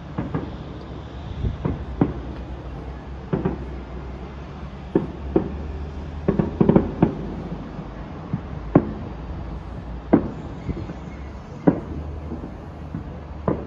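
Fireworks shells bursting: sharp single bangs every second or two, with a quick volley of crackling reports about halfway through. A steady low rumble runs underneath.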